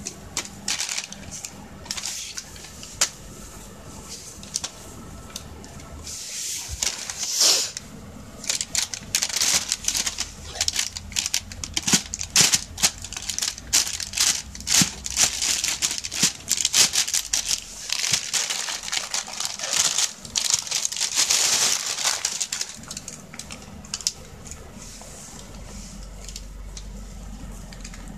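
Thin plastic shopping bag crinkling and crackling in irregular bursts as a cat paws and bites at it from inside. Sparse at first, busiest from about seven seconds in until a few seconds before the end.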